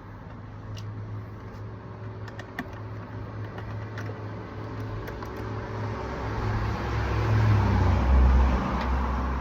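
Low engine rumble of a nearby road vehicle, swelling loudest about seven to eight seconds in, with a few faint clicks of a hand tool on the bolts.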